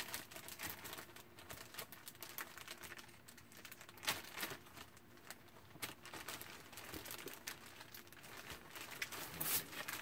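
Paper and packaging being handled: scattered rustles, crinkles and light taps, with a louder crinkle about four seconds in and more near the end.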